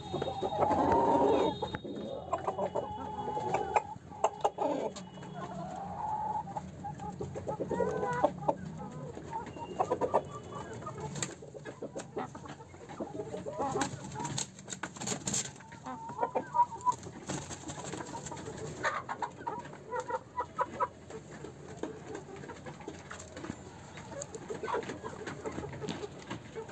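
A flock of desi hens and a rooster clucking and calling, loudest in the first two seconds, then scattered clucks and pecking clicks. A flurry of wing flapping comes around the middle.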